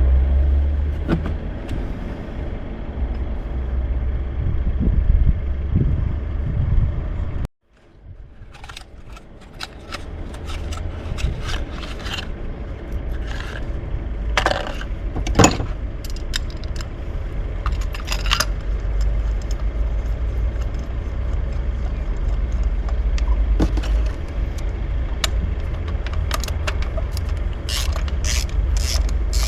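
Hand tools and metal parts clinking and scraping during work on a BMW M54 engine's spark-plug area, over a steady low rumble. There is a sudden break about seven seconds in, after which the clinks and clicks come thicker, most densely near the end.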